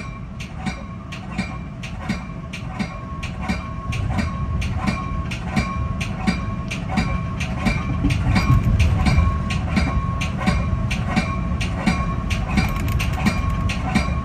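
Metra commuter train's wheels clicking over rail joints and switches, a regular run of about two to three clicks a second over a steady rumble, heard from inside the leading cab car. A faint steady high whine runs under it, and the rumble grows a little louder about four seconds in.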